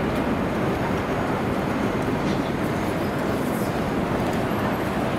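Steady city street ambience: a dense, even rumble of passing traffic.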